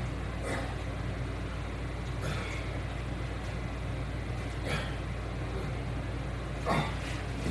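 A steady low mechanical hum, with four short breathy sounds about two seconds apart, like exhalations of effort during exercise repetitions.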